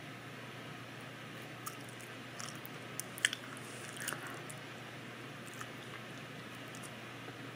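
Mouth sounds of chewing and swallowing soft carrot cake with cream cheese frosting: scattered faint wet clicks and smacks, a sharper one about three seconds in, over a steady low hiss.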